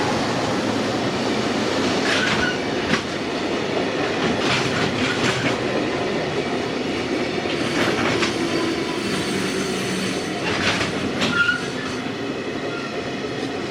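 A freight train running past: a steady rumble with clusters of clacks every few seconds as wagon wheels cross rail joints, and a few brief high wheel squeals.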